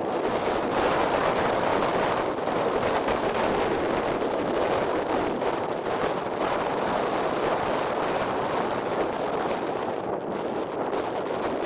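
Strong wind buffeting the camera microphone: a loud, steady rushing roar with no break.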